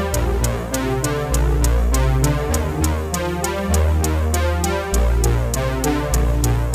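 Electronic background music with a steady beat, synthesizer chords and a deep bass line.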